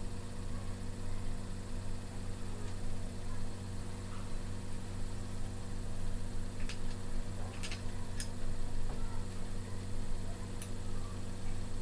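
Steady low mechanical hum, with about four short, sharp clicks of small metal airgun parts being handled and fitted in the second half.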